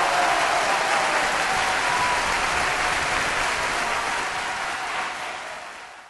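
Crowd applause, a steady dense clatter of clapping that fades out over the last second or so.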